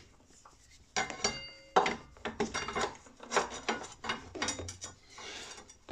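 Metal clinks and knocks from a Brembo front brake caliper, its new pads and the brake disc being handled as the caliper goes back on. There are a dozen or so separate knocks, a few of them ringing briefly, strongest about a second in.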